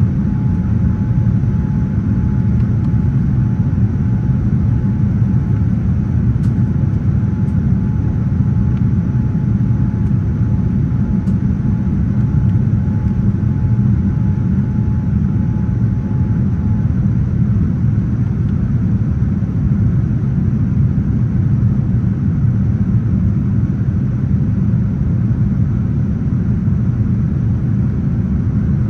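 Steady low cabin rumble of a jet airliner in flight, engine and airflow noise as heard beside a window over the wing. A faint steady whine runs alongside and stops about two-thirds of the way through.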